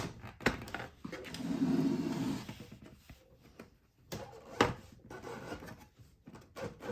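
A portable typewriter being handled and fitted into its case: a low scraping slide, then a few sharp knocks of the machine against the case, the loudest about four and a half seconds in.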